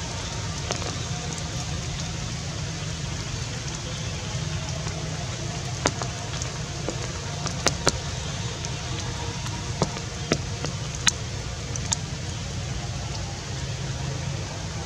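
Steady outdoor background hiss, with a handful of sharp ticks scattered through the middle.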